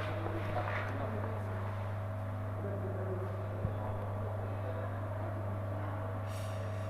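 Concrete paving-block machine running with a steady low hum and a fainter higher steady tone, with a single short knock about three and a half seconds in.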